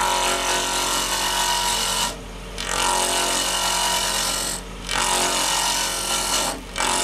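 Robust wood lathe running while a turning tool cuts a spinning wooden handle blank: a steady hiss of shavings being cut over the motor's hum. The cutting breaks off briefly three times as the tool comes off the wood.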